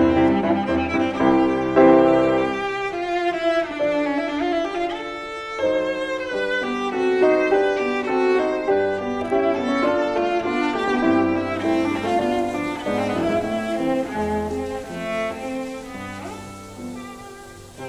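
Background music: a melody on bowed strings, violin and cello, with piano.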